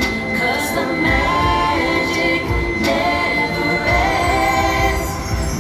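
A slow ballad sung by a choir of voices: the show's theme song played as a ballad.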